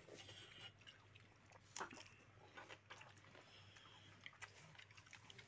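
Faint sounds of people eating from a floor spread: scattered small clicks and taps of hands, plates and cups, over a low steady hum, with one sharper click a little under two seconds in.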